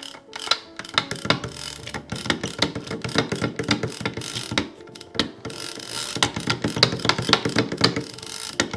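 Penn International 80VSW big-game fishing reel worked by hand, its ratchet mechanism giving rapid, irregular clicking, with a short pause about five seconds in.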